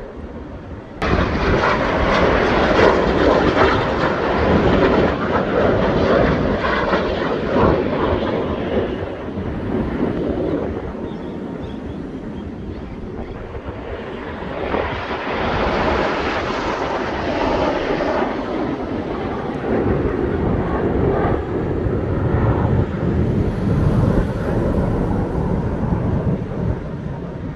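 Jet noise from BAE Hawk T1 jets flying past in formation, a loud rushing sound without a clear pitch. It comes in abruptly about a second in, eases off about halfway, then swells again as more passes come through.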